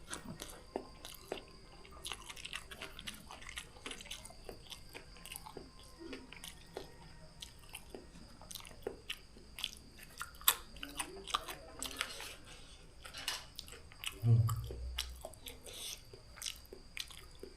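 Close-miked eating of chewy noodles: steady chewing with many small wet mouth clicks and smacks. About three-quarters of the way through there is one louder low thump.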